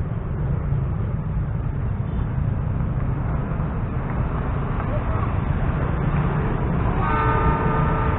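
A low steady rumble, then about seven seconds in an approaching train's diesel locomotive sounds its horn, a steady chord of several pitches held to the end.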